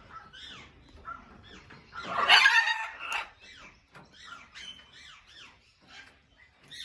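Parrot squawking loudly once, about two seconds in, followed by softer short calls and chatter.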